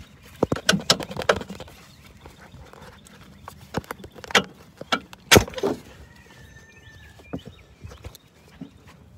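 Irregular sharp metal clinks and knocks of hand tools and bolts being handled while strut bolts are taken out, with a faint brief squeak about six seconds in.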